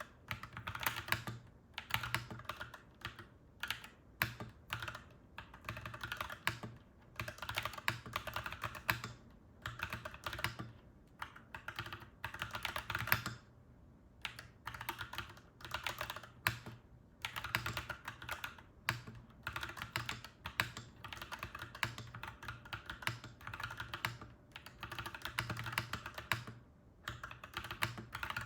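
Clacky mechanical keyboard being typed on in bursts of rapid keystrokes, with short pauses between bursts.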